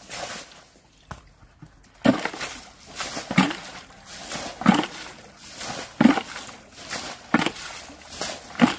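Water splashing in a steady rhythm, about one splash every second and a half, six in all starting about two seconds in, as water is worked in a shallow stream while fishing by hand.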